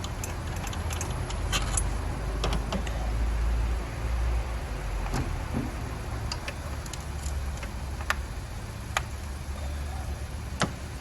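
Scattered light metal clicks and clinks of hand tools on engine parts, over a steady low rumble.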